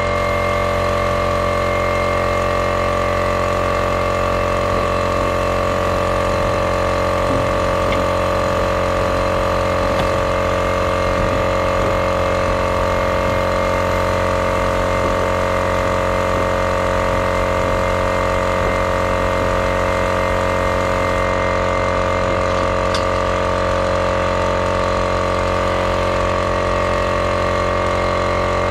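Small air compressor running steadily, pumping compressed air down the well pipe to the rinsing sludge pump that washes the pipe down.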